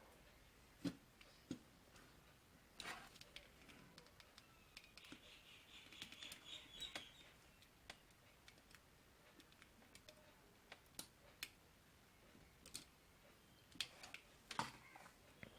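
Faint, scattered clicks and taps of small tools and parts being handled while a resistor is soldered onto an LED bulb's circuit board, with a brief faint hiss about halfway through.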